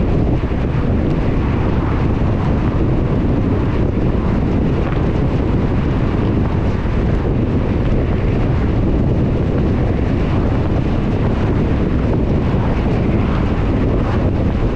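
A car driving on a wet road: a steady low rumble of tyres and wind with a little hiss.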